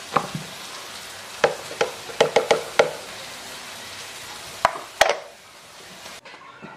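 Sharp plastic clicks and knocks from a Mitochiba CH100 electric food chopper as its lid is twisted off the bowl and set down: one near the start, a quick run of them between about one and a half and three seconds in, and two more near the five-second mark. Under them runs a steady hiss that stops shortly before the end.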